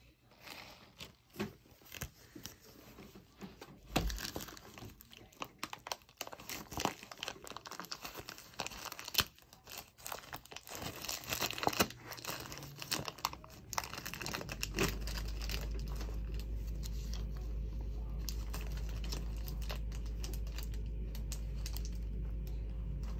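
Clear plastic wrap being crinkled and peeled off a picture frame by hand, with irregular crackles and sharp little taps. About two-thirds of the way in, a steady low hum starts and carries on under the handling.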